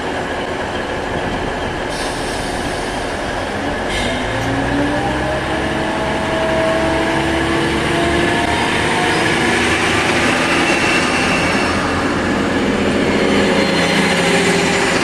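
DB Class 612 diesel multiple unit pulling away past the platform, its diesel drive rising steadily in pitch as it gathers speed over the rumble of its wheels. Two sharp clicks sound about two and four seconds in.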